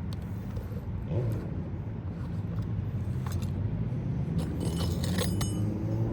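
Metal roof snake clicking and scraping against asphalt shingles as it works under them, a cluster of sharp clicks a little past the middle, over a steady low hum.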